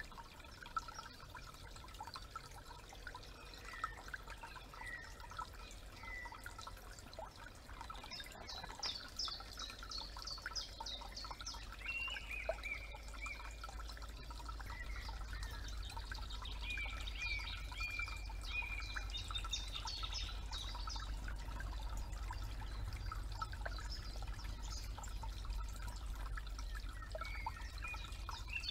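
A small forest creek trickling, with songbirds chirping and singing over it and a low steady rumble underneath.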